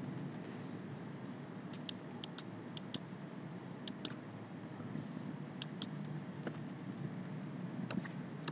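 Computer mouse clicking, a dozen or so sharp clicks, mostly in quick pairs a fraction of a second apart, over a steady low hum.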